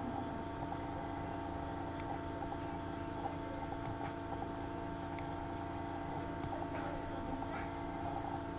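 Steady electrical hum of room tone, with a few faint clicks.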